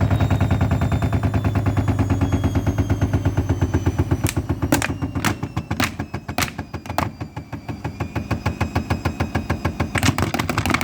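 Fagor washing machine drum spinning down with its door open, damp towels beating round in it in a fast rhythmic thumping that gradually slows, over a motor whine falling in pitch. Sharp clacks break in from about four seconds in, and again in a cluster near the end.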